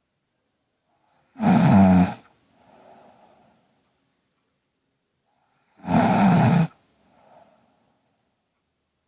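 A girl snoring: two loud snores about four seconds apart, each followed by a quieter breath.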